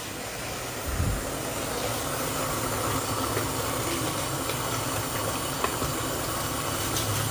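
Steady hiss with an even low hum from a pot of curry cooking over a gas burner, with a soft low thump about a second in.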